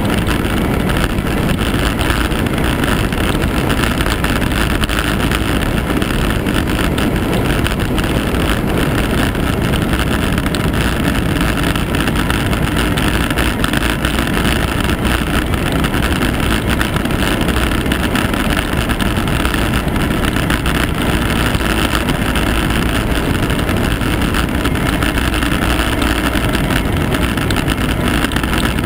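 Steady wind rush and road noise on the microphone of a camera mounted on a vehicle moving at speed, loud and unbroken, with no distinct engine note.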